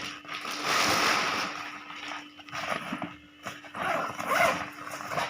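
A fabric bag being handled and opened, with rustling and scraping that come in irregular bursts, loudest in the first second and a half. A steady low hum runs underneath.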